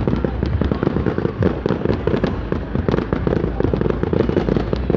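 Fireworks display going off in a dense, continuous stream of rapid bangs and crackles, with no pause.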